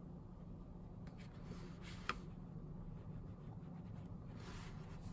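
Faint strokes of a water brush's bristles brushing over sketchbook paper, with one small tick about two seconds in, over a low steady hum.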